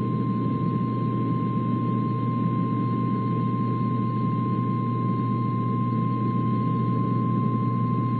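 A warning alarm tone of the NOAA Weather Radio kind: one steady, unbroken high tone of about 1050 Hz over constant radio hiss and a low hum. It is the alert that comes before a tornado warning message.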